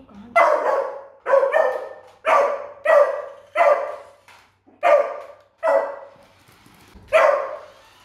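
A beagle puppy barking in a string of about nine barks, roughly one a second, each trailing off. These are wary, alarmed barks at an unfamiliar remote-control car that still frightens it.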